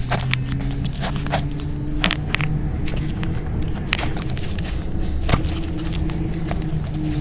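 Bombardier Flexity Outlook tram standing stationary, its onboard equipment humming steadily with a few low tones that come and go. Scattered short clicks and taps sound over it.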